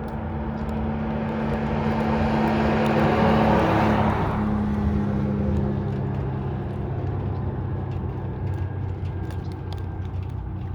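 A vehicle passing by over a steady low hum: its tyre and engine noise swells to a peak about three to four seconds in, drops slightly in pitch as it goes by, and fades away.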